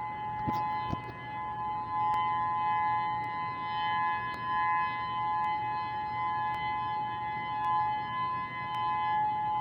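Outdoor civil-defense warning siren sounding a steady two-tone note with no change in pitch, swelling and fading a little in loudness. This is Hawaii's monthly siren test, the steady attention alert signal.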